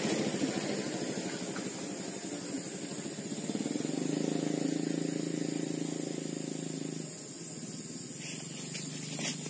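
A motor engine running some way off, fading over the first couple of seconds, then a steady droning hum from about three and a half seconds in that cuts off at about seven seconds, over a steady high hiss.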